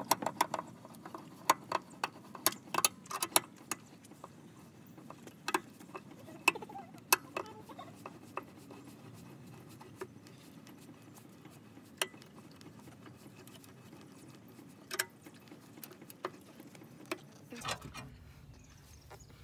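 Scissor jack being cranked up with its hooked steel jack handle: irregular metallic clicks and clinks as the hook turns in the jack's screw eye, close together for the first few seconds and then scattered every second or two.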